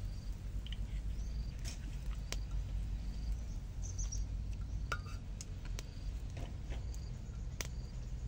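Small open wood fire crackling under an empty wok: scattered sharp pops and snaps over a steady low rumble, with faint short bird chirps now and then.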